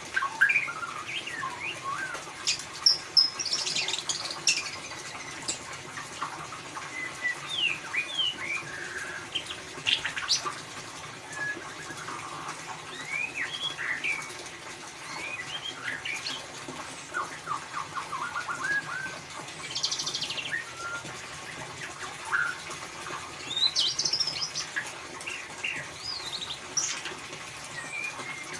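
White-rumped shama (murai batu) singing in the chattering 'ngeriwik' style: a busy stream of quick, varied chirps, short whistles and rising and falling notes with hardly a pause.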